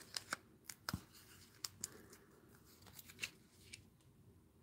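Faint, scattered clicks and rustles of cardstock and vellum being handled as a vellum heart is set on a cardstock heart and pressed down.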